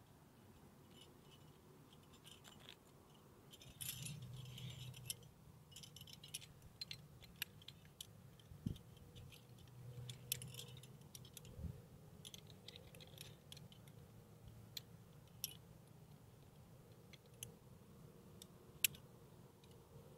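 Metal climbing hardware, carabiners and protection pieces, clinking and jingling in scattered small clicks as gear is cleaned from the crack and clipped onto the harness. A longer jingle comes about four seconds in.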